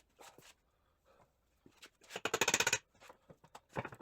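Small steel parts of a Triumph TR6 gearbox clinking against each other as it is worked apart by hand: a quick jingling rattle about two seconds in that lasts under a second, with a few fainter clicks around it.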